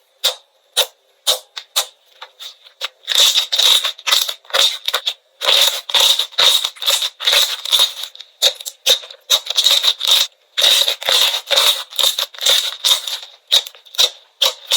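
Slime being pressed and squished, giving rapid crackling snaps. They come a few at a time at first, then in dense runs from about three seconds in.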